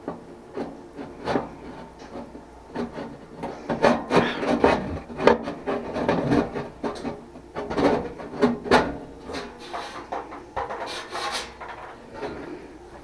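Hands and tools working on the parts of a central heating and air unit: irregular scraping and rubbing broken by many sharp clicks and knocks, busiest in the middle.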